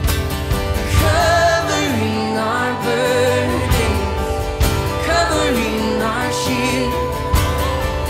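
Live worship band playing between sung lines: acoustic guitar and drum kit under a gliding melody line over held chords.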